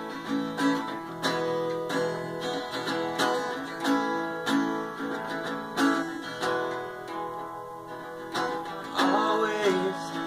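Two acoustic guitars strumming and picking chords together in a steady rhythm: the instrumental intro of a song, before the vocals come in.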